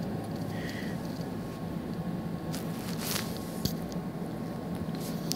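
A pet monkey's fur, hands and mouth rubbing and pressing against the phone that is recording: close rustling with a few soft clicks around the middle, over a steady low hum.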